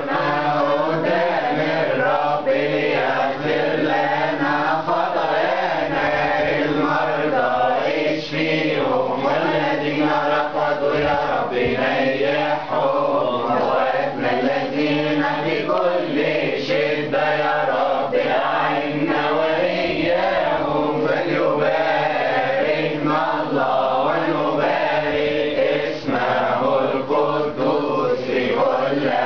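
Coptic Orthodox doxologies chanted by a group of voices, continuous and unbroken.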